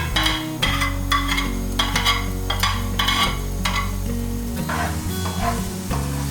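Food sizzling in a frying pan while being stirred, with a utensil scraping the pan about twice a second, over soft background music.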